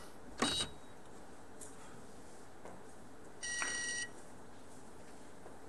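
A sharp click of billiard balls being struck about half a second in, then, a little over three seconds in, a steady electronic beep lasting about half a second.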